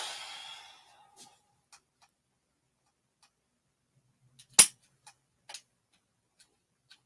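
Scattered clicks and knocks of the plastic and metal parts of an easel's clamp head and arms being handled and fitted together, with a sharp knock about four and a half seconds in, the loudest. A brief burst of noise at the start fades out within a second.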